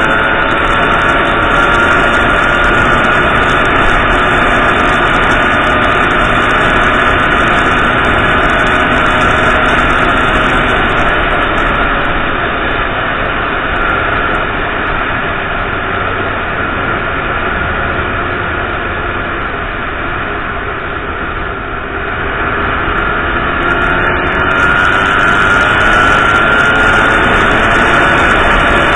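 Motorcycle engine running under way, with wind noise on the helmet-mounted microphone. The engine eases off and quietens a little after the halfway point, then picks up again with a rising pitch near the end.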